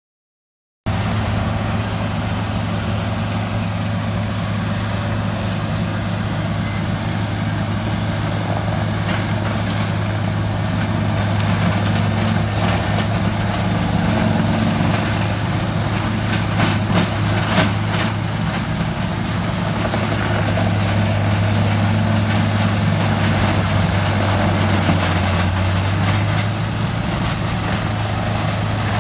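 Diesel engine of a Morbark 3200 horizontal track grinder running steadily, starting abruptly under a second in. A high whine rises and falls twice over the engine, with a few sharp clicks midway.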